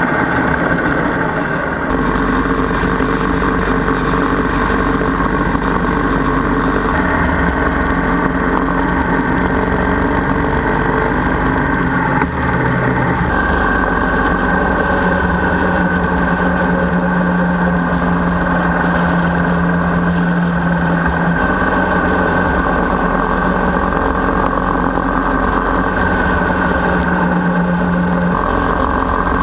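Motorcycle engine running at a steady cruising speed with wind noise, heard from on the moving bike; the engine note jumps to a new steady pitch a few times.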